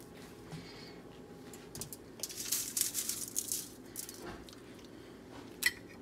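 Dry rustling of crushed cracker and cornflake crumbs as a chicken tender is worked through them in a stainless steel bowl and laid on a foil-lined sheet, loudest around the middle. Near the end a metal spoon gives one sharp clink against a ceramic mug of melted butter.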